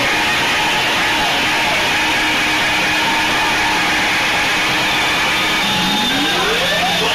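Loud club house music, a build-up section that is mostly a noise wash with little bass, and a synth sweep rising in pitch over the last second and a half.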